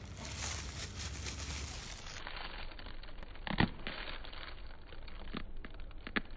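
Durian husk being pried apart by hand: soft crackling and rustling as the rind and pith tear, with one sharper crack about three and a half seconds in.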